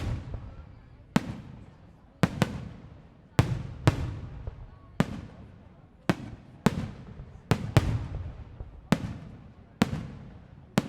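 Fireworks display: aerial shells bursting in a steady series of sharp bangs, about one a second and sometimes two close together, each followed by a fading echo.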